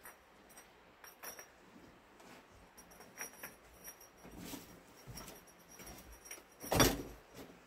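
Kiln posts being lifted out of an electric kiln and set aside: scattered light knocks and clinks of ceramic kiln furniture, with one louder knock near the end.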